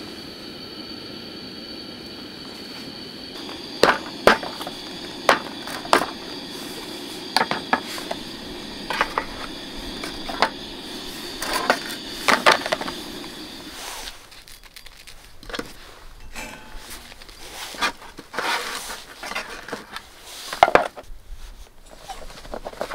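Camp gas stove burner running with a steady hiss and a faint high whistle under sharp clicks and clinks of plastic food containers and utensils being handled. About fourteen seconds in the burner sound stops, leaving scattered clicks, clatter and knife scraping on a cutting board.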